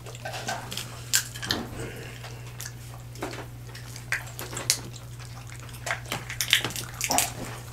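People eating chicken wings and seafood boil with their hands: wet chewing and lip-smacking with many short, scattered clicks, over a steady low hum.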